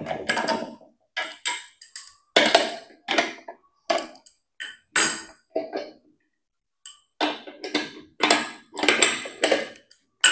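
Irregular metal knocks and clanks from a pressure pot being handled as its lid clamps are undone and the lid is opened after venting, about a dozen separate strikes, some with a short ring.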